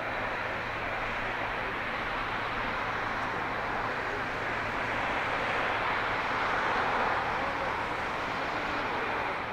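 Jet engine noise from a departing Boeing 777-200ER's Rolls-Royce Trent engines at takeoff power: a steady noise that swells slightly past the middle.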